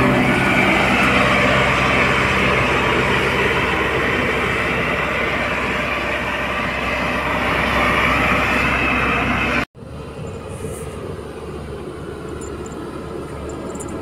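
HAMM single-drum road roller running steadily as it rolls over a dirt road, its diesel engine loud. About ten seconds in the sound cuts off abruptly and comes back much quieter, the roller still running.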